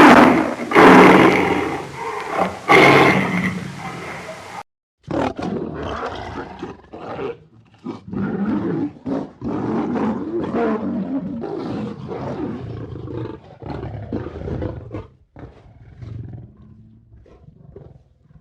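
Lions roaring: a few loud, long roars in the first four seconds or so. Then, in a different recording, a long run of short roars in quick succession that weaken and fade out toward the end.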